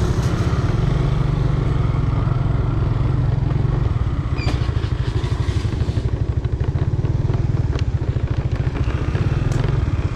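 Engine of the camera rider's small scooter running close to the microphone, a low, fast, even pulsing as it pulls away and rides along a rough dirt track. A few brief knocks and rattles come from bumps in the track.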